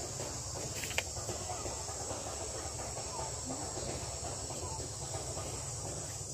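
Outdoor forest ambience: a steady high-pitched drone and a low rumble, with faint scattered background murmur and a single sharp click about a second in.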